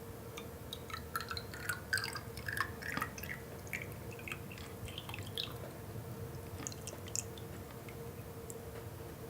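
Scattered small dripping, plinking sounds, thickest in the first half and dying out after about seven seconds, over a faint steady hum.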